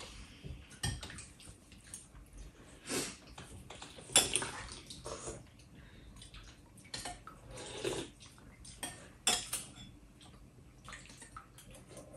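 Spoons clinking and scraping against soup bowls, irregular taps from several people eating soup at a table.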